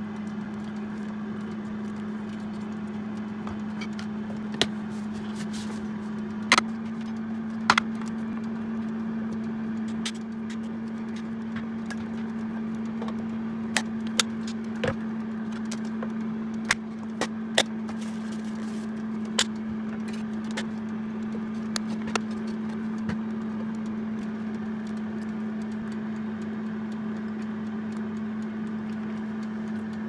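Food containers and their lids being handled: scattered sharp clicks and clacks as lids are pressed on and containers are set down, with a spoon working through sauce. A steady low appliance hum runs underneath.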